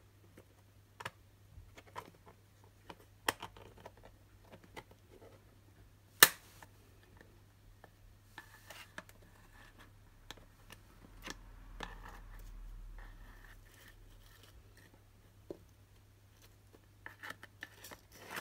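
Sparse clicks and taps of a clear plastic tub enclosure's lid being held down and handled, with one sharp click about six seconds in and a few more near the end.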